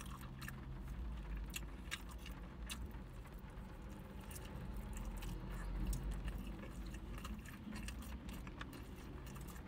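Eating a karaage bento: chopsticks clicking and scraping on a plastic takeaway tray, with chewing, in irregular short clicks over a low steady hum.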